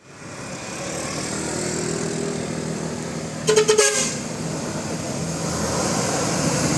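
Steady bus engine and road noise. About three and a half seconds in, a bus's telolet horn gives one short, pulsing toot lasting about half a second.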